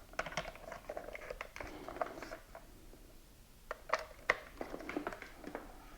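Handling of a power cord and plug: light rustling with scattered small clicks and knocks, a few sharper ones about four seconds in, as the cord is plugged into a portable fridge.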